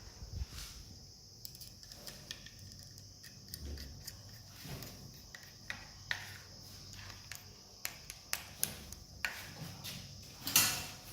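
Scattered small clicks and taps of hands working on electrical switch fittings and wiring, with one louder sharp click near the end, over a steady high hiss.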